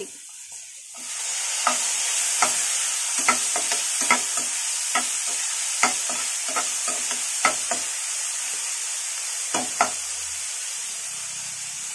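Chopped tomatoes hitting hot oil in a frying pan of peas and onions, sizzling from about a second in, while a steel spoon stirs and taps against the pan over and over. The sizzle eases slowly toward the end.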